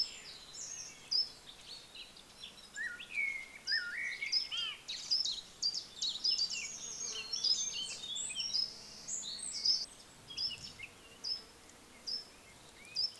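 Several small birds singing and calling. Short high chirps repeat throughout, mixed with a few lower whistled notes that rise and fall, and the song is busiest in the middle.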